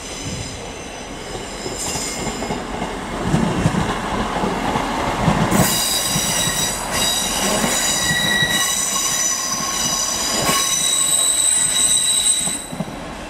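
Northern Class 158 diesel multiple unit running slowly past, its wheels squealing on the curved track in several high, steady tones. The squeal grows louder about five seconds in and stops shortly before the end.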